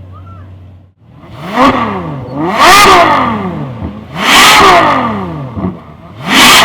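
Ferrari 6.3-litre naturally aspirated V12 idling, then revved hard four times in quick succession. Each rev climbs fast in pitch and drops back down.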